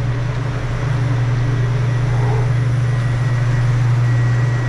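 Walk-in freezer's evaporator fans running: a steady, loud rushing drone with a low hum under it and a faint high whine.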